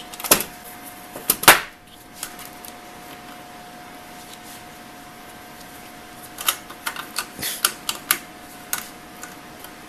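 Clicks and light knocks of a DVR's metal hard-drive bracket and IDE ribbon cable being handled and fitted by hand, with a sharp knock about one and a half seconds in and a run of quick light clicks from about six to nine seconds. A faint steady hum underneath.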